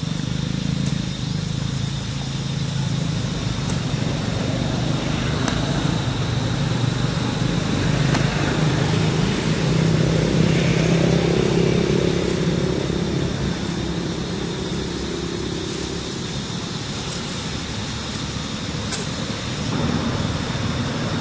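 A motor vehicle's engine running with a steady low hum, growing louder towards the middle and easing off after.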